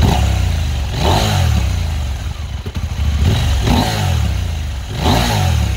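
2022 Husqvarna Norden 901's parallel-twin engine revved through an aftermarket Akrapovič slip-on muffler. It gets several quick throttle blips, each rising and falling back toward idle.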